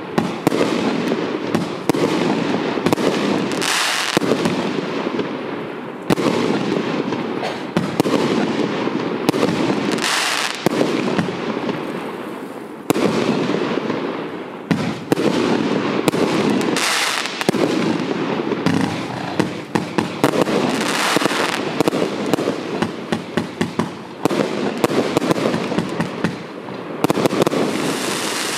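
A 122-shot compound fireworks battery firing in rapid succession: a continuous stream of launches and bangs, with crackling and hissing effects.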